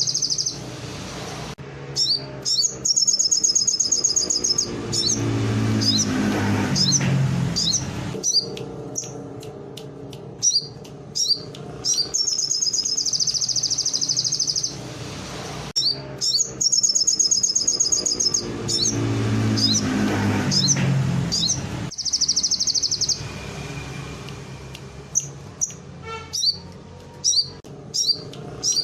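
Sogon songbird singing a canary-style song: fast high trills lasting two to three seconds each, five or six times, with many short sharp chips between them. A low drone swells and fades twice underneath.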